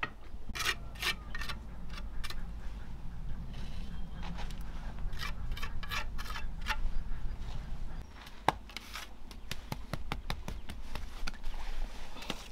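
Steel trowel scraping and spreading mortar on bricks in short repeated strokes, followed by a run of lighter clicks and taps in the second half.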